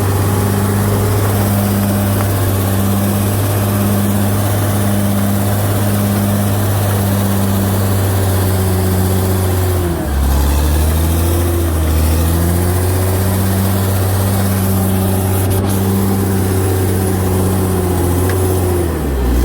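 Bulldozer's diesel engine running steadily at a loud, even note. About halfway through the pitch drops suddenly, then climbs back over the next couple of seconds. It dips again briefly near the end.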